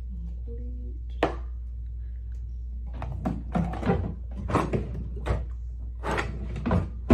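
Objects being handled and set down on a surface: a sharp knock about a second in, then a run of clattering knocks and handling noises, over a steady low hum.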